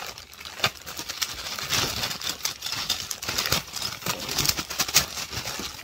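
Thin plastic bags crinkling and crackling in a quick, irregular run as hands untie a knotted grocery bag and pull it open.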